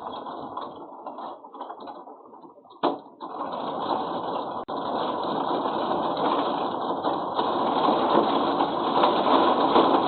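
Hailstones pelting down in a dense, rapid rattle. A single sharp knock comes about three seconds in, and after it the hail grows heavier and louder.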